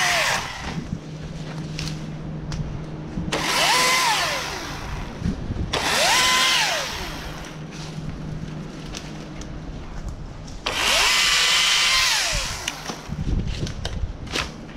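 Husqvarna T536LIXP battery chainsaw cutting through small limbs in three short runs: each time the motor whine rises quickly, holds while it cuts, then winds down as the trigger is released.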